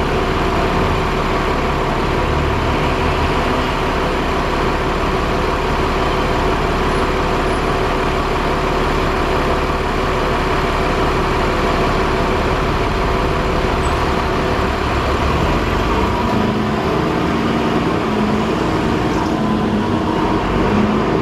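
Alexander Dennis Enviro 400 double-decker bus on the move, its drivetrain giving a steady whirring tone over engine and road rumble. About 16 seconds in the low rumble fades and lower tones come in that shift in steps.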